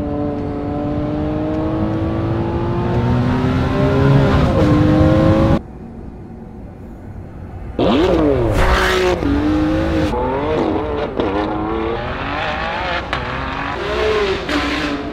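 Ferrari 599 GTB Fiorano's naturally aspirated 6.0-litre V12 accelerating, its pitch rising steadily, then cut off abruptly about five and a half seconds in. After a quieter couple of seconds it comes back loud with a falling sweep, then revs rising and dropping through gear changes, with a few short sharp cracks.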